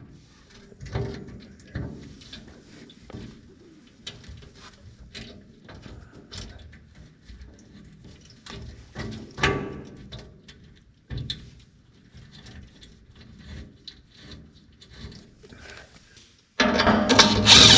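Light metal clinks and knocks of nuts, bolts and washers being handled and threaded by hand onto steel generator mounting brackets, with a louder knock about halfway through. Near the end a much louder, rapid rattling with a steady hum starts suddenly.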